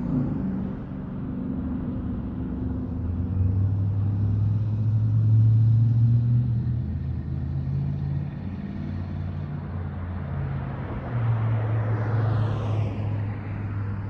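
Dodge Charger Daytona's Hemi V8 running through dual Jones Turbine JR20 exhaust while driving, a deep steady rumble that swells about five seconds in. A whoosh falling in pitch passes about twelve seconds in.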